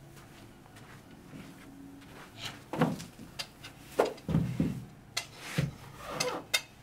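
A series of sharp knocks and clicks mixed with a few dull thuds, starting about two and a half seconds in and coming irregularly until just before the end.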